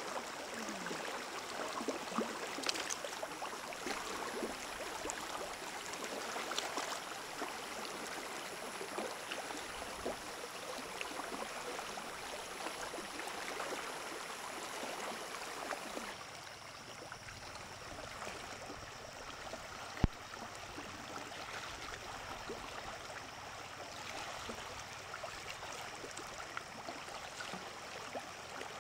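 Running water, a steady flowing wash with scattered small clicks. It turns softer a little past halfway, and one sharp click comes about two-thirds through.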